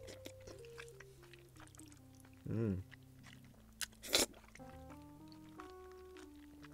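Soft background music with a simple stepping melody, under close-miked eating: a short voiced mouth sound about two and a half seconds in, and a brief crunchy bite about four seconds in.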